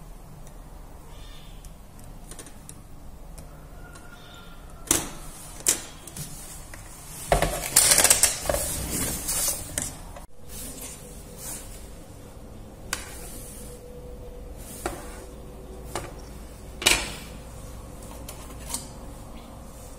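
Scattered clicks and knocks of small tools and phone parts handled and set down on a wooden desk. A louder stretch of rustling and clattering comes just before halfway.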